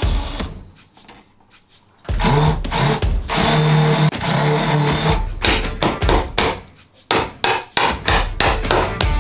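Cordless impact driver running in bursts of a second or so, backing screws out of a pocket door's trim. After it comes a quick run of sharp knocks and taps.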